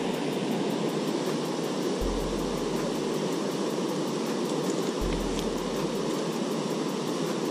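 Steady rush of river water pouring through the bridge's broken sluice shutters.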